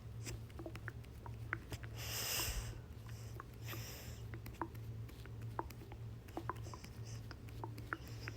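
Human stomach gurgling: scattered small pops and squelches, with two longer rushing noises a couple of seconds apart, about two and four seconds in.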